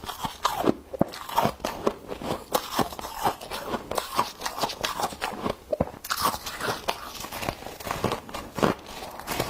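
Frost crunching, with many short, irregular crunches and crackles each second.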